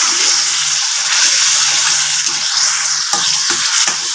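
Onion-tomato masala with ground spices sizzling in oil in a kadai, stirred briskly with a slotted metal spatula, with a few scrapes against the pan near the end.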